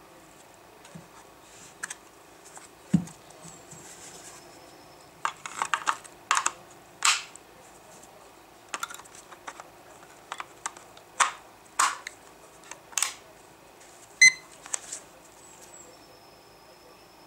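Plastic clicks and knocks from a Technoline WS 6762 weather station's battery compartment as batteries are fitted and the cover is handled: a dull thump, then a dozen or so sharp clicks over several seconds. Near the end the station gives one short electronic beep as it powers up.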